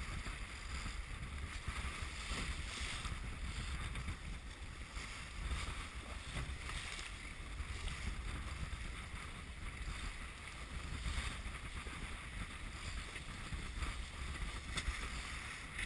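Wind buffeting the microphone as a racing sailboat moves through waves, with a steady hiss of water rushing along the hull that swells every few seconds.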